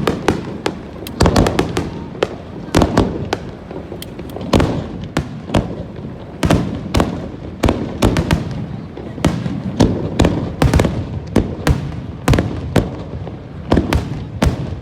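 Fireworks star mine, a rapid barrage of shells bursting with many sharp bangs, several a second, and crackling between them.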